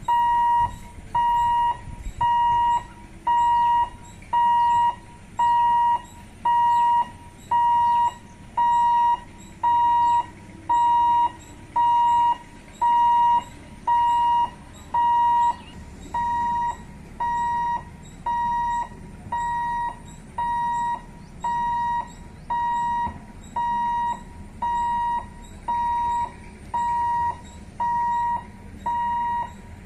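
Level-crossing warning buzzer sounding a steady electronic beep about once a second, each beep lasting about half a second, a little quieter after the midpoint.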